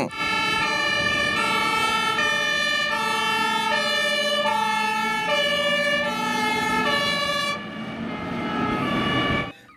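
Two-tone siren of a German fire engine, stepping back and forth between a high and a low pitch. The sound turns duller about two seconds before it stops.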